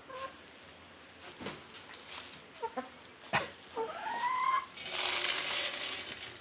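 Chickens clucking in short soft calls, with one longer rising call about four seconds in, amid a few sharp taps. From about five seconds in, a louder rustling noise sets in.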